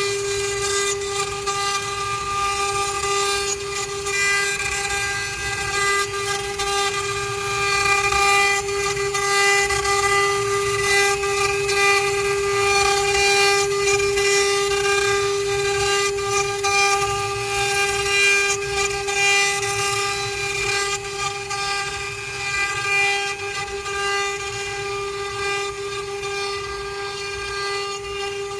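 Spindles of a four-head CNC wood carving router running at one steady high-pitched whine, with a hiss of cutting wood underneath.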